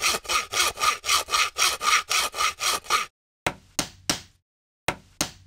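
Handsaw sawing sound effect: quick, even strokes, about six a second, for some three seconds. Then about five short, sharp knocks in two groups, like hammer taps on wood.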